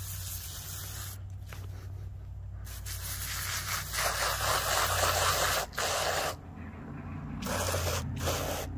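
Aerosol degreaser can spraying in several hissing bursts with short breaks, the longest in the middle, onto the broomed-out strands of a steel wire rope end: degreasing the wires before a resin pour into the socket.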